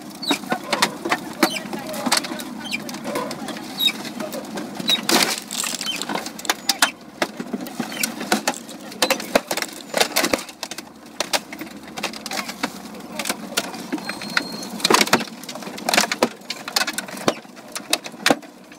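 Sharp cracks, knocks and metallic clanks of a wrecked car body being crushed and broken apart, over the steady running of a tracked armoured vehicle's engine. The loudest strikes come about five, ten and fifteen seconds in.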